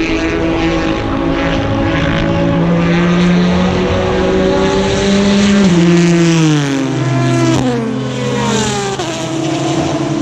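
Endurance race cars at racing speed passing the trackside. Engine notes climb steadily, then drop in pitch several times in the second half as cars go by.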